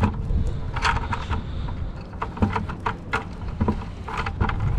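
Low, uneven wind rumble on the microphone, with several short knocks and rustles as a plastic bucket and its rope are handled.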